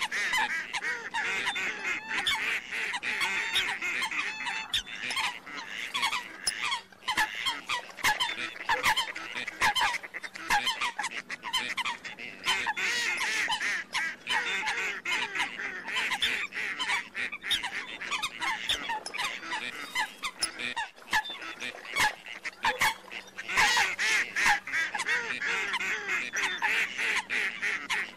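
Dense chorus of waterfowl, water hens and ducks with mallards among them, giving many short overlapping calls without a break. It swells into louder spells near the start, in the middle and near the end.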